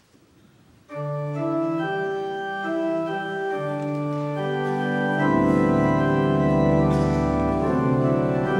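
Organ beginning to play about a second in, holding sustained chords. Deep bass notes come in about halfway through, and the sound grows a little louder.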